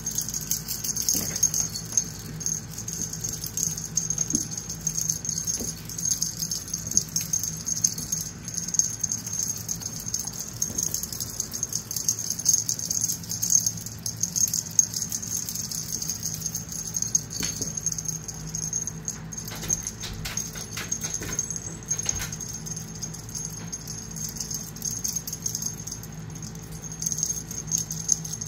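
A big litter of Himalayan kittens mewing here and there and moving about on a hardwood floor, with scattered light clicks of paws and claws on the wood, over a steady high hiss and a low hum.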